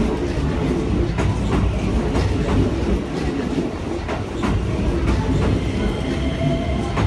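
Keikyu New 1000 series (1800 subseries) electric train running past, heard from the platform: a steady rumble with the wheels clicking over the rail joints at irregular intervals. A faint steady high tone comes in near the end.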